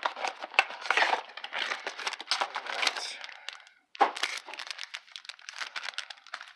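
Packaging crinkling, rustling and tearing as a box of trading cards is opened by hand, with a brief pause and then a sharp crackle about four seconds in.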